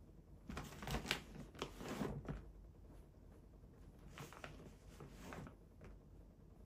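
Faint rustling and light clicks of things being handled, coming in irregular spurts.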